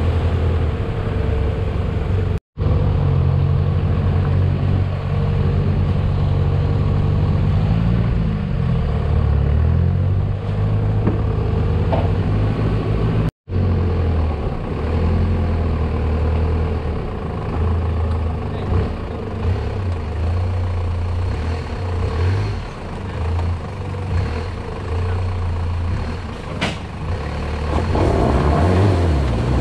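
Toyota Hilux Surf 4x4 engine running at low revs while crawling over a rough, wet track, its pitch shifting a little as the throttle changes. The sound cuts out sharply twice where clips are joined.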